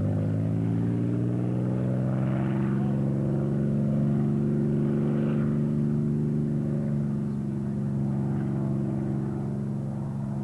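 P-47 Thunderbolt's 18-cylinder Pratt & Whitney R-2800 radial engine running at takeoff power, a steady propeller-plane drone. It rises slightly in pitch over the first few seconds, then holds steady and fades a little near the end.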